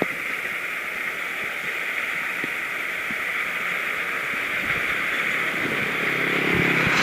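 Kubota DC60 combine harvester running with a steady rushing hiss. A low engine hum builds over the last couple of seconds, with a few short knocks.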